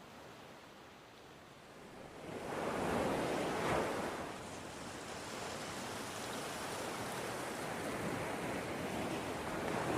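Wind blowing over the microphone together with the wash of sea waves, a steady rushing noise that swells louder about three seconds in and again near the end.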